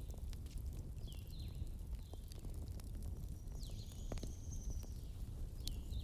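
Wood fire crackling, with scattered sharp pops over a steady low rumble. Short high falling squeaks come about every second and a half, one of them trailing into a thin high whistle.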